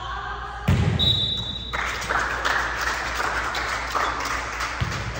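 A thud, then a short referee's whistle blast about a second in, followed by a crowd's cheering and chatter in a gym hall, with another thud near the end.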